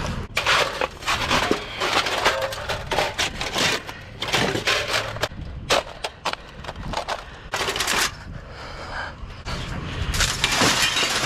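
Irregular clattering, knocking and cracking of hard scrap items being handled and moved about, a string of uneven sharp knocks with short pauses between them.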